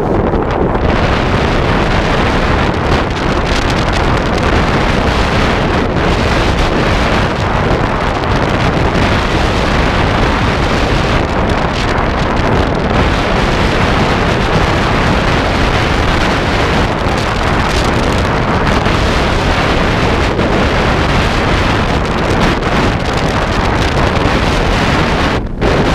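Wind buffeting the microphone of a pole-held camera as a skier goes fast downhill, mixed with the hiss of skis carving over packed snow. Loud and steady, with a brief dip near the end.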